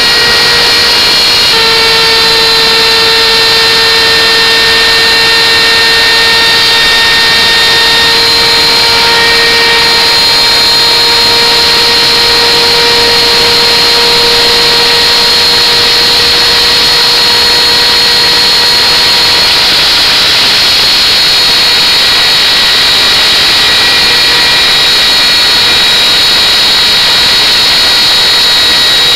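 Wood router running at full speed with a steady high whine while its bit cuts curved grooves into a wooden board. The pitch steps down slightly about a second and a half in.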